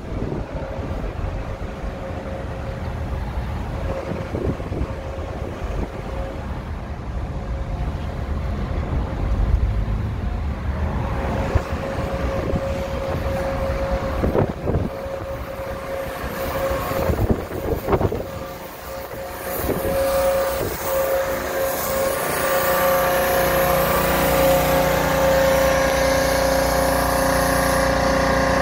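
Car driving slowly through city streets, heard from an open window: road and traffic noise with wind on the microphone. A steady hum runs underneath and grows louder and fuller for the last several seconds.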